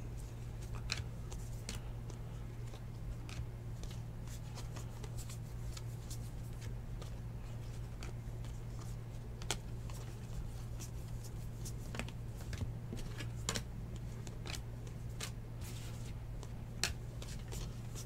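2019 Bowman Baseball trading cards flipped through by hand, one card slid off the stack after another, giving soft, irregular clicks and rustles. A steady low hum runs underneath.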